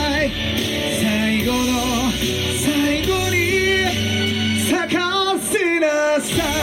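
A pop-rock band with a woman singing, guitar and drums backing; the bass and drums drop out for a moment about five and a half seconds in, under a held vocal line.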